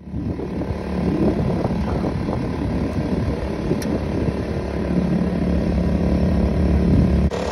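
Steady engine drone on a bowfishing boat, with a constant low hum. The level drops suddenly near the end.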